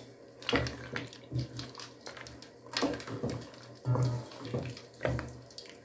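Wooden spoon stirring chicken feet and freshly added ice cubes through a thick curry sauce in a metal pot: a series of about seven wet sloshing, scraping strokes at irregular intervals.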